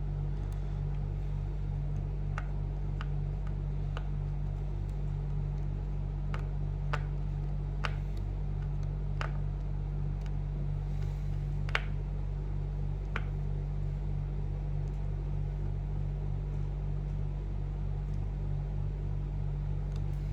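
Small sharp clicks and taps from handling laptop parts and the drive cable, about ten of them scattered through, the loudest one about twelve seconds in, over a steady low hum.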